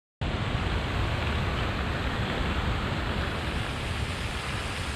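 Steady rushing of park fountains and streaming water, cutting in abruptly just after the start.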